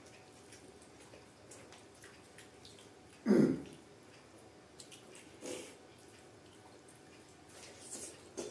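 Close-miked eating sounds: one short, loud, wet mouth sound about three seconds in, then fainter wet mouth noises about two seconds later and near the end.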